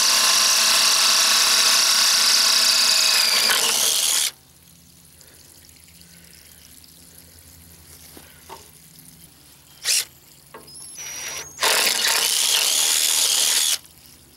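Cordless drill running as it bores a drain hole through the bottom of a metal boat fuel tank to let water out. It stops suddenly about four seconds in, gives a short burst near ten seconds, and runs again for about two seconds near the end.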